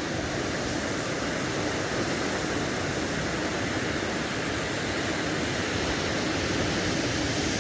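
Steady rushing noise of heavy sea surf and wind on the microphone at the beach.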